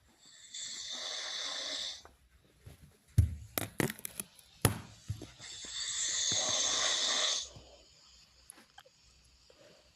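A person snoring in his sleep: two long, hissing snores about five seconds apart, with a few sharp clicks and knocks between them.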